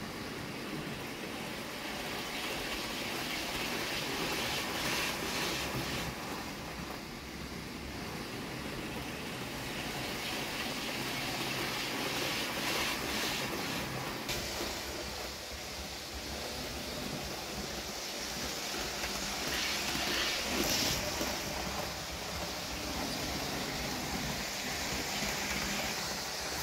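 Hornby Class 390 Pendolino model train running along the track: a steady whirring rumble of its motor and wheels on the rails, rising and falling a little in loudness.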